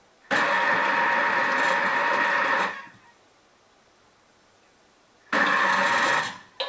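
Thermomix TM5 food processor on its dough-kneading setting, its motor and blade churning a thick quark, yogurt and oat mixture in two short bursts with a pause between: a run of about two and a half seconds, then a shorter one of about a second near the end.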